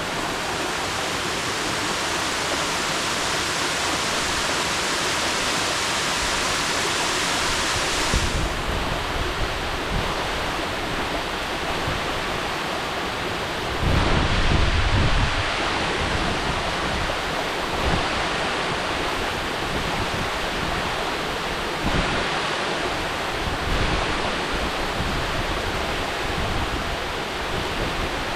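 Mountain waterfall rushing steadily. Low gusts of wind hit the microphone several times, the longest about halfway through.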